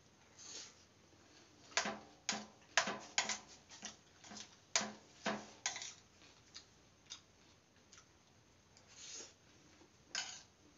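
Close-up eating sounds of vegetable biryani eaten by hand: a quick run of wet clicks and smacks of chewing a couple of seconds in, then a few sparser clicks and one more near the end.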